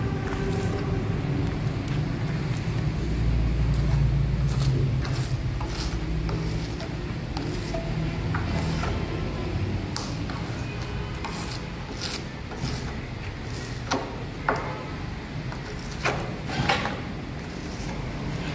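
Workshop noise: scraping and rubbing with scattered sharp knocks and clicks over a low steady hum, the knocks coming more often and louder in the last few seconds.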